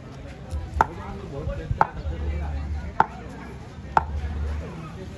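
Four sharp taps about a second apart, over a low rumble.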